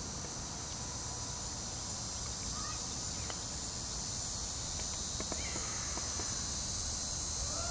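Steady high-pitched chorus of summer insects buzzing in the trees, holding an even drone without breaks.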